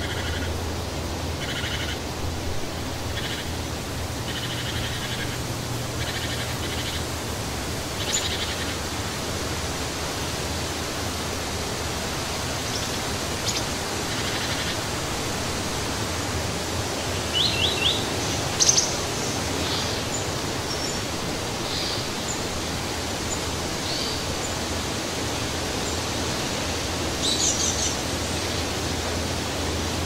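Steady wind rushing through trees, with scattered short bird chirps and calls over it. A quick run of three chirps comes about 17 seconds in, followed at once by the loudest call, and there is another short burst of chirps near the end.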